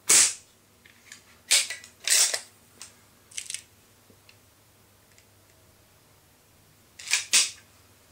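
A Baikal IZH MP-53M spring-piston air pistol, its mainspring beveled and moly-greased, fires once with a sharp crack at the start, sending a pellet through a chronograph at about 402 fps. A run of smaller clicks and clacks follows over the next few seconds, and a quick double clack comes near the end.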